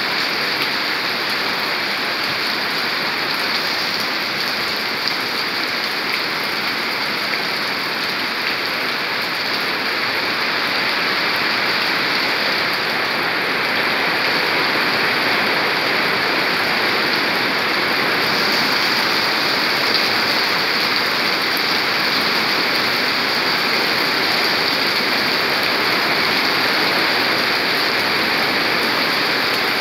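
Heavy rain pouring steadily onto a wet paved street, an even hiss that grows a little louder about halfway through.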